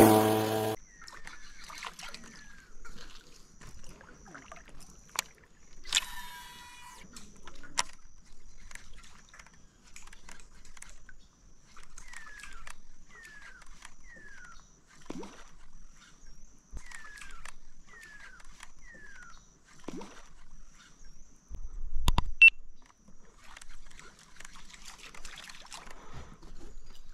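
Water sloshing and splashing lightly against a fishing kayak, with one louder thump a little over twenty seconds in. Short falling whistle calls come in runs of two or three, over a faint steady high tone.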